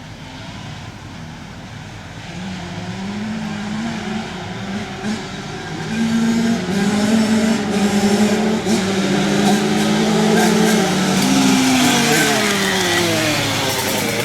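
Pack of flat-track racing engines running together on the dirt oval, getting louder from about six seconds in as the pack comes closer. The pitch steps up through gear changes, then several engines drop in pitch near the end as they go past.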